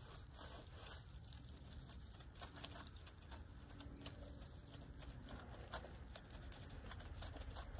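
Wet wash mitt scrubbing a soapy alloy wheel: faint, irregular rubbing and scratching strokes over a low steady rumble.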